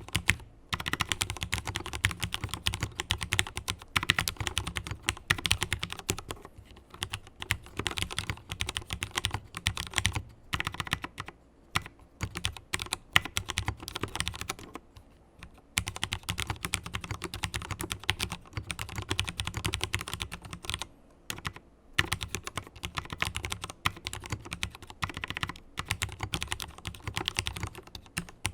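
Mechanical keyboard with factory-lubricated Cherry MX Black linear switches being typed on quickly, in dense runs of keystrokes broken by a few short pauses.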